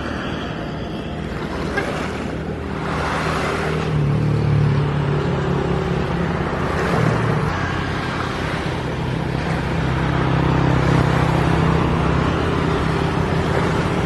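An engine runs steadily with a low drone, growing louder about four seconds in, over a steady rushing noise.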